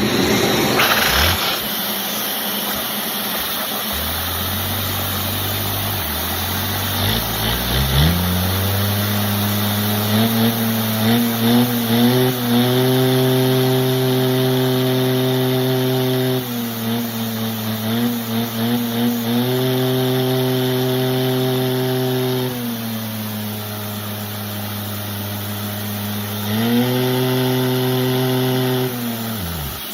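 An engine starting after a few seconds of low, uneven running, then revved up and held at a steady higher speed, dropped back to a slower run, and revved up twice more before winding down and stopping near the end, over a steady hiss.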